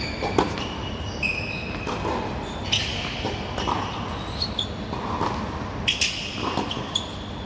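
Tennis rally on a hard court: a ball struck by rackets about three times, a few seconds apart, with the nearest hit the loudest about half a second in. Short high squeaks of tennis shoes sound between the hits.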